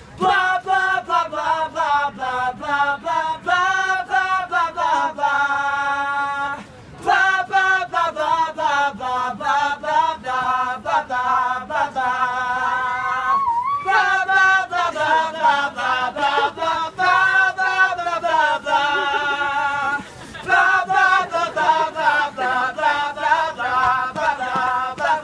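A cast ensemble singing in chorus without instruments, holding long sung notes, over a steady beat of sharp strikes. The singing breaks off briefly twice.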